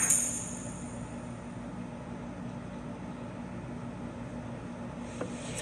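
A sharp, hissy sound dies away right at the start, leaving a steady low hum with faint hiss. There is a single small click near the end.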